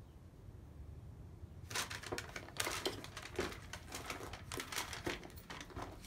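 A paper instruction sheet rustling and crinkling as it is handled, starting a little under two seconds in and going on as a run of irregular crackles.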